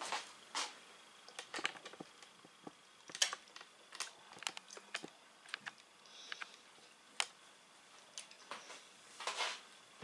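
Scattered light clicks and taps at an irregular pace: a toddler eating, picking salad out of a plastic bowl with her fingers, food and hands knocking against the bowl.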